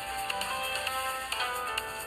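A Samsung Galaxy J2 Prime ringtone playing: an electronic melody of short notes over a steady ticking beat.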